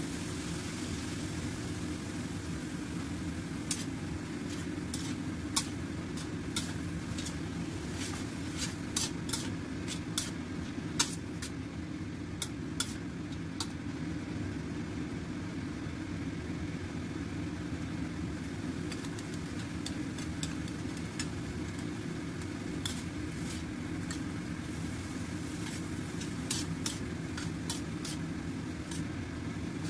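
Metal spatula scraping and clinking against a stainless-steel wok as rice vermicelli is stir-fried, over a steady low hum. The clinks come in two busy spells, with a quieter stretch in between.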